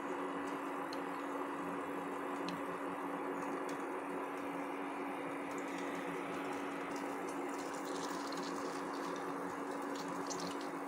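Rice frying in ghee in a pressure cooker: a steady sizzling hiss with scattered faint crackles and a steady low hum underneath.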